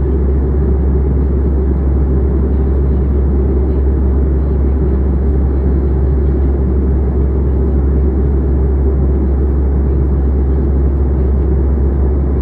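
Steady low roar of an airliner in descent heard from inside the passenger cabin: engine and airflow noise, even and unbroken.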